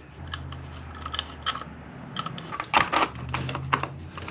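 Irregular clicks and clatter of plastic and metal chainsaw parts as a replacement chain brake assembly is fitted onto the saw by hand, over a steady low hum.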